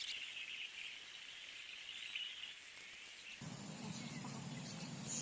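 Faint steady chirring of insects, dropping away about two and a half seconds in. A steady low hum comes in abruptly soon after.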